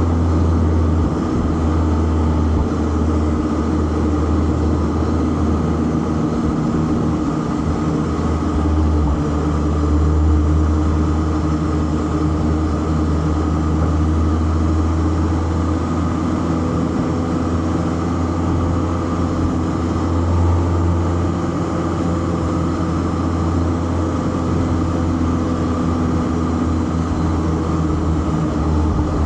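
Four-cylinder car engine running at a steady, even speed, a deep drone with little change in pitch, with road noise over it.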